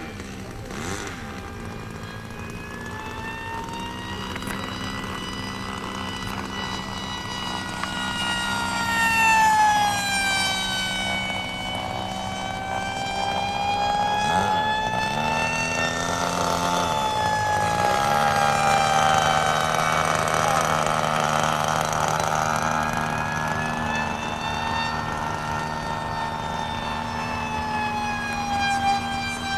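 Electric pusher-prop RC jet (Nitro Planes Falcon 25 EP, with a Medusa brushless in-runner motor spinning an APC 6.5×5 prop) whining overhead at high speed. Its pitch and loudness rise and fall as it makes several fast passes.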